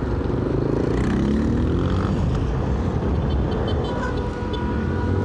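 Honda Bros 160's single-cylinder engine running under a steady rumble of wind on the microphone, its revs falling during the first couple of seconds as the bike slows, then running on steadily.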